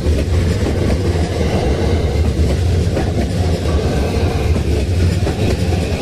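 A train passing on the rails close by: a steady, loud, low rumble with some wheel clatter.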